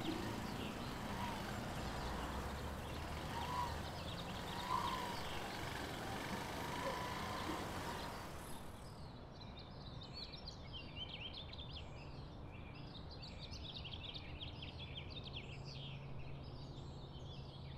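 Street traffic ambience: a steady wash of passing vehicle noise with a few faint short tones. About halfway through it changes abruptly to a quieter background filled with many small bird chirps.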